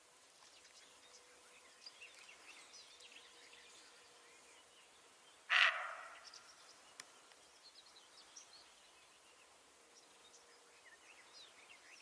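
A roe deer gives a single harsh alarm bark about halfway through, over faint scattered bird chirps.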